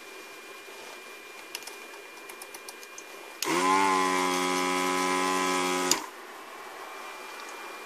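Electric desoldering gun's vacuum pump buzzing steadily for about two and a half seconds, switched on and cut off abruptly with a click, as it sucks molten solder out of a through-hole joint on a circuit board. A few faint ticks come before it.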